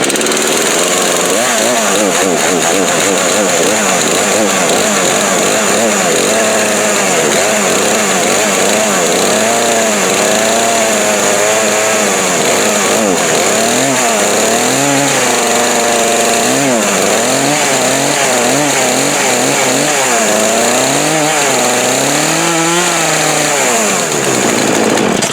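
Craftsman 42cc two-stroke chainsaw running after about five years in storage on the old gas, revved up and down again and again with the throttle, then shut off suddenly at the end.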